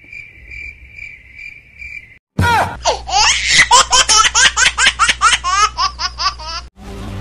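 Cricket chirping for about two seconds. Then a sudden, loud, high-pitched laugh, a rapid run of about four "ha" syllables a second, which cuts off abruptly near the end.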